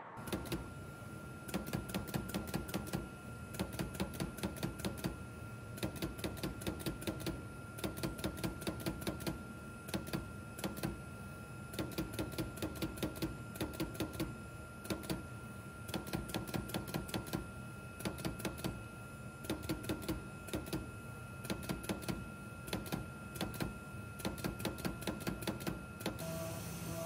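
CNC leather cutting machine's tool head working on a hide, clattering in quick bursts of sharp clicks about a second long with short pauses between, over a steady high tone.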